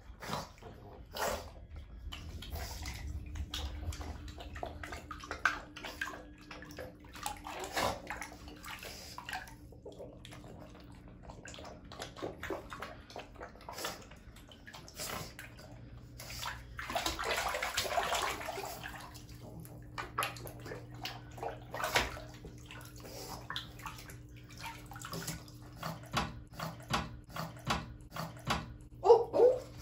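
Shallow bathwater sloshing and splashing around a pug puppy's legs as it wades and paws at the tub wall: a run of short splashes, busiest about seventeen to nineteen seconds in.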